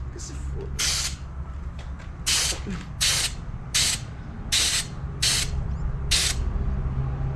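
Aerosol can of matte black spray paint hissing in about eight short bursts, roughly one a second, over a steady low hum.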